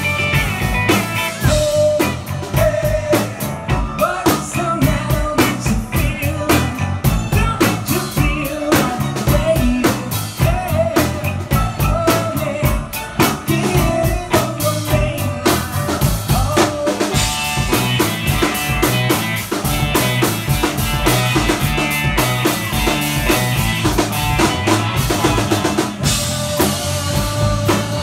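Live band playing a pop-rock song: a drum kit keeps a steady beat under bass guitar, with lead vocals over it.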